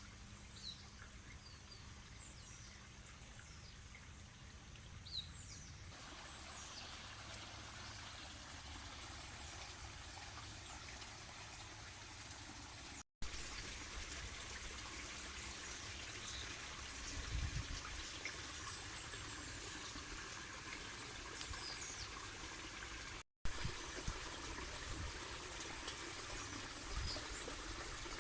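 Steady rush of running water, with faint short bird chirps over it. The sound drops out for an instant twice.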